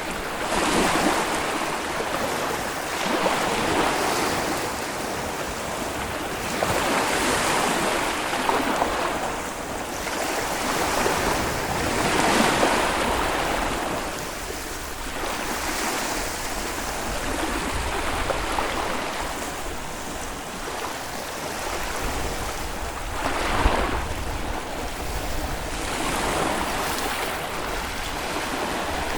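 Small Baltic Sea waves breaking and washing ashore. Each wave swells and fades every few seconds in a steady hiss of surf.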